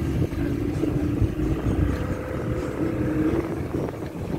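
Small passenger boat's engine running steadily with a low hum while the boat is under way, mixed with water rush and wind buffeting the microphone.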